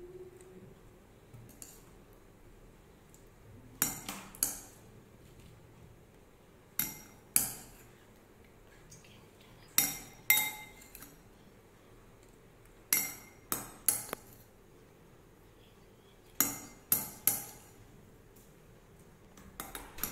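Metal spoon clinking against a glass bowl while scooping corn kernels: sharp, ringing clinks in groups of two or three, a few seconds apart.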